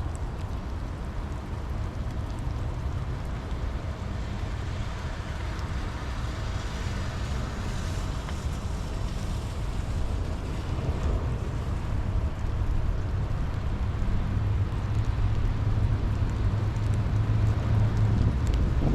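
Steady rain with a deep low rumble underneath that swells louder toward the end.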